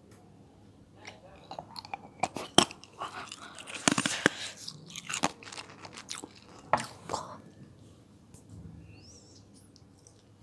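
Close-miked chewing: wet mouth clicks and smacks in quick irregular bursts, busiest in the first seven seconds and fainter after.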